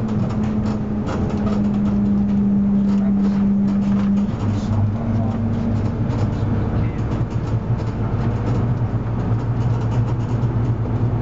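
Leyland Atlantean AN68 double-decker bus under way, heard from inside the bus: its rear-mounted diesel engine drones steadily with road noise. The engine note shifts lower about four seconds in.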